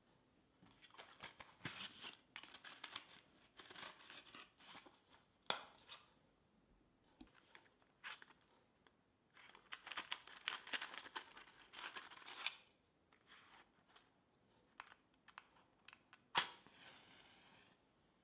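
Quiet crinkling and tearing of thin plastic packaging in several irregular bouts as it is handled and opened. Near the end a match is struck with one sharp scrape and hisses for a second or so as it flares.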